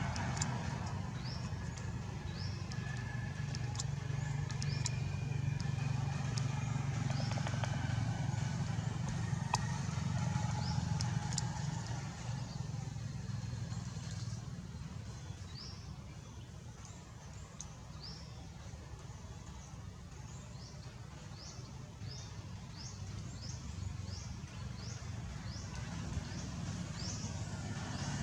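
A low engine rumble, like a vehicle running, that is strongest in the first half and then fades. Over it come many short, high, upward-sweeping chirps, which fall about once a second near the end.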